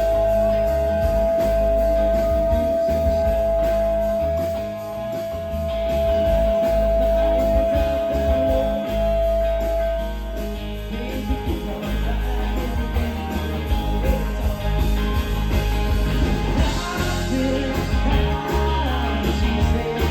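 Rock band playing an instrumental passage with guitar, bass and drums, likely live. A long held note sounds over the band for about the first ten seconds and then stops.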